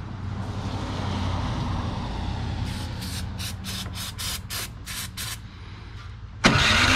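An aerosol can of ether starting fluid spraying into the Toro 721 snowblower's engine intake, hissing and then spitting out in short spurts, about four a second, as the can runs nearly empty. A steady low hum runs underneath. Near the end a sudden, much louder noisy sound starts.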